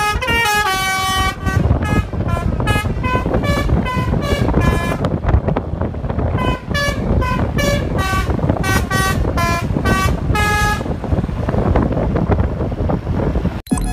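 Indonesian bus telolet horn (Basuri multi-trumpet musical air horn) playing a tune in rapid, short staccato notes. It stops for about a second around 5 s, plays again until about 11 s, then gives way to the bus engine's rumble.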